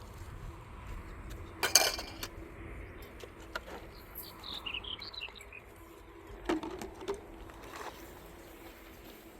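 A sharp clatter of knocks about two seconds in and a smaller knock later, with a brief run of high chirps in between, like a small bird.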